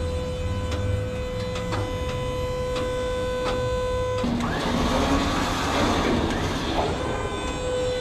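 Electric hydraulic pump of a dumpster tilt trailer whining steadily as it tips the bed, with a few faint ticks. About four seconds in the whine drops in pitch and a louder, rough grinding takes over as the dumpster slides off the tilted bed.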